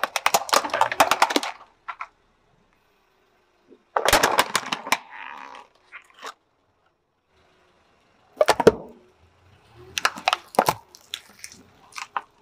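A car tyre crushing a plastic toy car and other small objects: several bursts of cracking and crunching, separated by silence.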